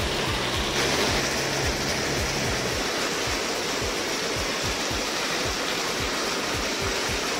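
Hot tub jets running on high speed, a steady rush of churning water under a blanket of foam: the foam is the purge cleaner lifting biofilm out of the plumbing. Background music with a steady low beat plays underneath.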